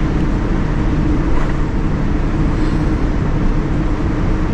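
Steady cabin noise of a Boeing 787-10 taxiing, its Rolls-Royce Trent 1000 engines at idle: an even low rumble with no change in pitch.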